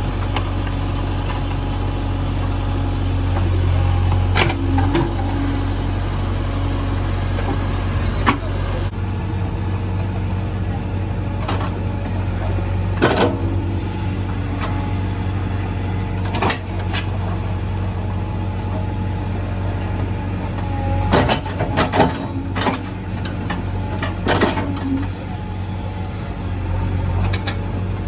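JCB 3DX backhoe loader's diesel engine running steadily, with sharp knocks every few seconds and a cluster of them about three-quarters of the way through.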